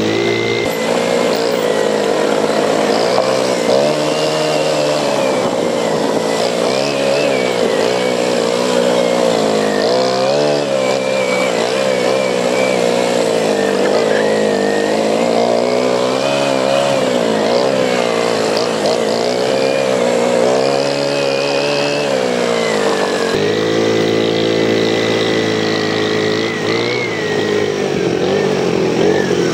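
ATV engine running while being ridden, its pitch rising and falling as the throttle opens and closes. It settles to a steadier note about three-quarters of the way through.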